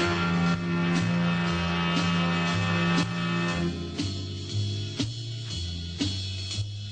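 Instrumental closing music with regular plucked notes about twice a second over a stepping bass line; a long held low note drops out a little under four seconds in.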